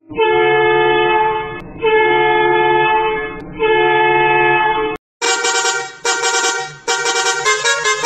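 Bus horn sound effect: three long blasts of about one and a half seconds each, then after a short break a brighter, choppier horn sound pulsing in quick repeated bursts.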